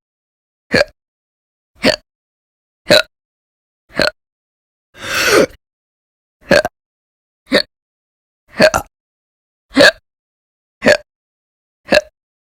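A woman hiccuping loudly in a steady run, about one hiccup a second, eleven in all; the one about five seconds in is drawn out longer than the others.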